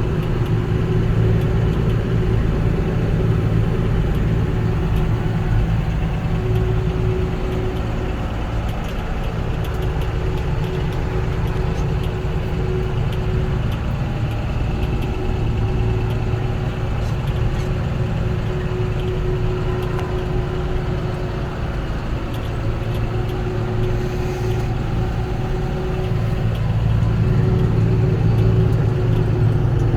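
Combine harvester running steadily at work: a continuous diesel engine drone with a higher machine whine that fades in and out.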